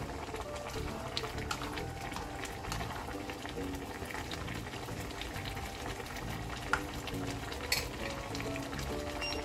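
Chicken stew bubbling and crackling as it simmers in a wok, stirred at first with a plastic spatula, over background music. Two short knocks about a second apart later on.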